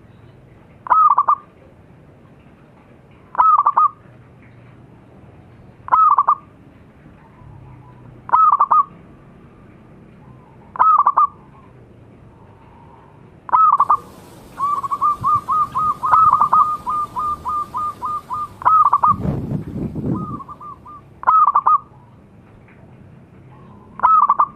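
Zebra dove (perkutut) cooing its short, loud song phrase about every two and a half seconds. In the middle a fast run of short coos follows at about four a second for several seconds. A low rumbling thump comes about three quarters of the way through.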